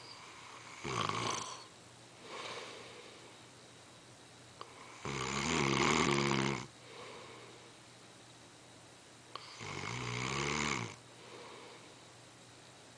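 A man snoring in his sleep: three pitched snores about four seconds apart, the middle one the longest and loudest, each followed by a softer breath out.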